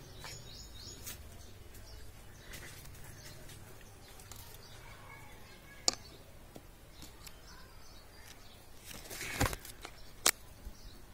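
Quiet garden ambience with faint bird chirps. A sharp click comes about six seconds in, and a brief rustle and another click near the end.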